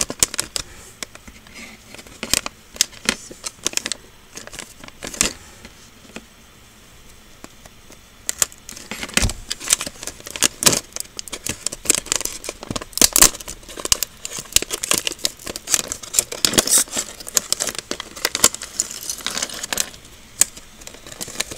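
Crinkling of a Lego Minifigures foil blind bag being squeezed and torn open by hand, with the small loose plastic minifigure parts clicking and rattling. It is sparser for a few seconds, then crinkles densely from about eight seconds in.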